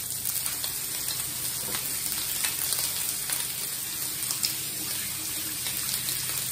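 Kitchen faucet running as hands are washed under it in the sink: a steady hiss of water with light splashing.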